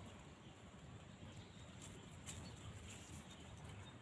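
Near silence: faint outdoor room tone with one soft click a little over two seconds in.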